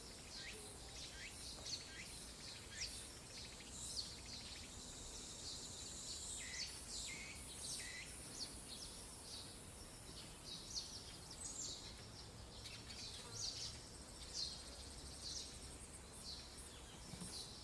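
Small birds chirping in short, quick calls, several a second, over a faint outdoor background. A high, steady buzz joins in for a few seconds in the middle.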